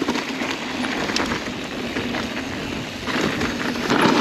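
Mountain bike rolling along a dry, dusty dirt trail: a steady crackle of tyres over loose grit and gravel, with louder swells about three and four seconds in.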